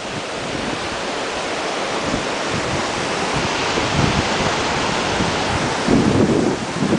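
Surf washing onto the beach, a steady rushing noise, with gusts of wind buffeting the microphone about four and six seconds in.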